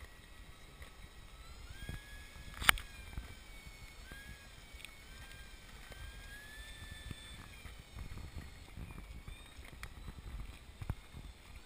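The electric motor and propeller of a radio-controlled Icon A5 amphibian model whining in short throttle bursts as it taxis, the pitch rising and falling with each burst, over a steady low rumble. A single sharp click stands out about two and a half seconds in.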